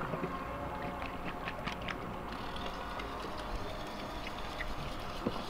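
Steady shoreline ambience of wind on the microphone and gently lapping sea water, with a few faint clicks about a second and a half in.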